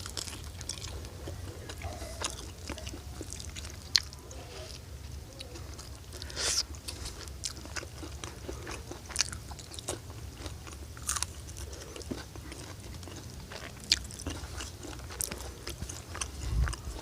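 Close-up chewing and biting of food, with irregular crisp crunches and a louder crunch about six and a half seconds in. A steady low hum runs underneath.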